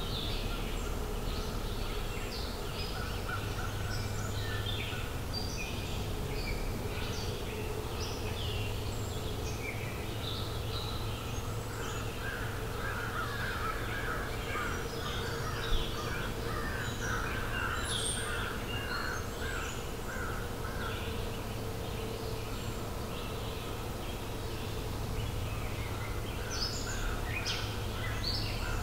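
Forest birds singing and calling, many short chirps and whistles, with a rapid trill repeated for several seconds around the middle. Beneath them is a steady low hum, and there is one sharp click about halfway through.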